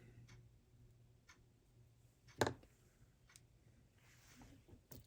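Clock ticking faintly, about once a second, with one louder, sharper click about two and a half seconds in.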